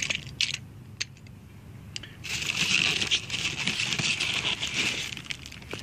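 A hand rummaging inside a plastic mailer, crinkling and rustling the plastic and its foam packing. A few light clicks come first, then steady crinkling starts about two seconds in and stops shortly before the end.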